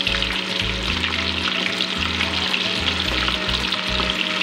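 Battered chicken pakodi pieces deep-frying in hot oil, sizzling and crackling steadily while a spoon stirs and turns them in the pan. This is the first, partial fry.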